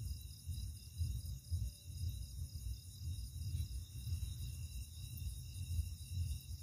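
Outdoor night ambience: a steady high-pitched chirring of night insects over an uneven low rumble on the microphone.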